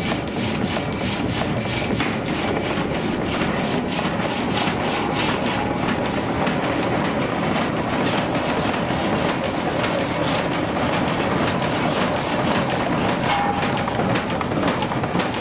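Up-and-down sash sawmill running, its reciprocating saw and frame clattering in a steady, rhythmic beat as it cuts through a log on the carriage.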